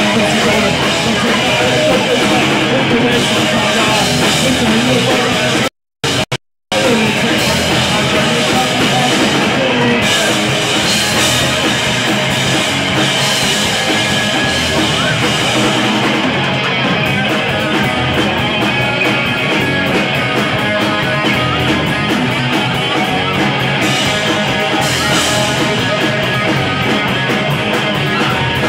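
Live rock band playing loud: electric guitars, bass guitar and drum kit. The sound cuts out twice for a split second about six seconds in.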